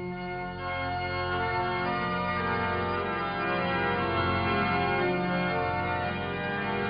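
Organ music playing slow, sustained chords, starting abruptly at the beginning.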